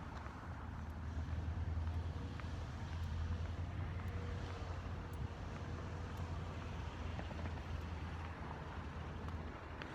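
Bus running on the road: a steady low engine and road rumble, with a faint wavering whine about halfway through and a few light rattles.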